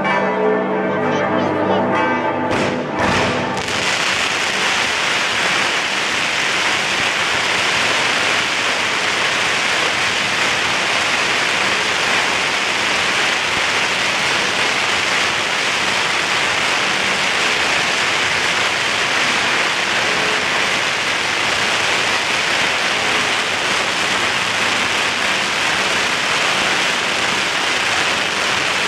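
Church bells ringing for the first few seconds, then a few sharp bangs after which the bells are drowned out by a dense, steady crackle and fizz of fireworks going off on the ceremonial cart, which continues to the end.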